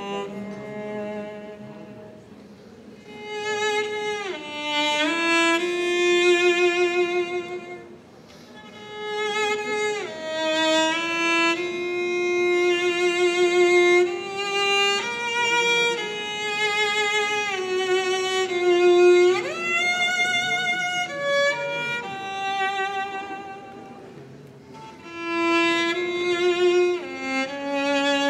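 Slow string music led by a violin, sustained notes with vibrato and a few sliding notes, played in phrases that swell and fade.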